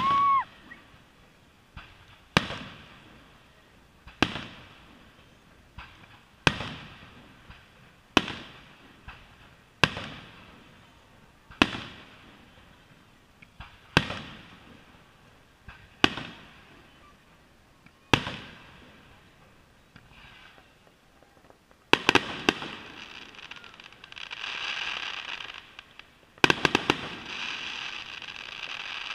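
Fireworks: aerial shells bursting one at a time, roughly every two seconds, each bang echoing and fading away. Near the end comes a quicker cluster of bangs followed by a spell of crackling.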